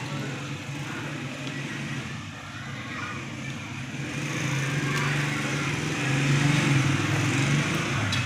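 A motor running with a steady low hum, joined by a rush of noise that grows louder about halfway through.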